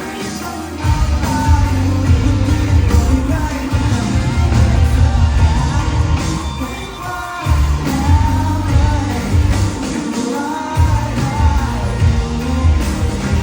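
Live indie rock band playing a song with a lead singer, heard from within the audience; the bass and drums drop back briefly twice, near the middle and later on.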